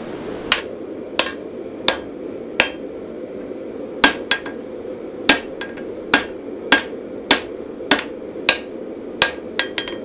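Hand hammer striking a red-hot knife billet on an anvil: about fifteen sharp metallic blows, roughly one every two-thirds of a second, each with a short ring, and a quick run of lighter taps near the end. A steady low rushing noise runs underneath.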